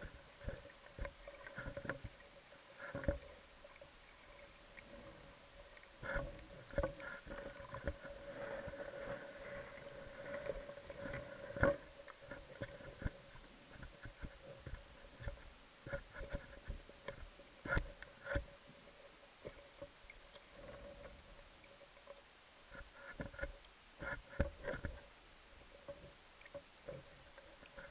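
Muffled underwater sound picked up through a camera housing: irregular knocks and clicks from the diver's gear and handling, over a faint steady hum.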